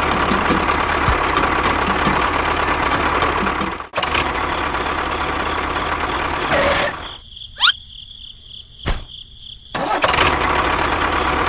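A small engine runs steadily. It cuts off abruptly and resumes about four seconds in, then drops out for a few seconds. In the gap there is a brief rising whistle and a sharp click, before the engine sound returns.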